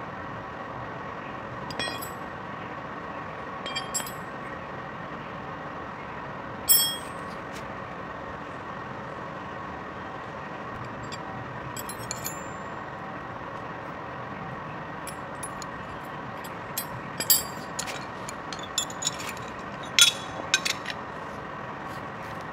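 Metal hand tools clinking as they are picked up and set down on a concrete floor: scattered sharp knocks, a loud one about seven seconds in and a run of them near the end. Under them runs a steady machine hum.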